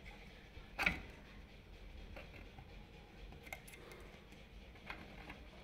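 Light metal handling while an exhaust mounting bolt on a scooter is turned by hand: one sharp click about a second in, then a few faint scattered clicks.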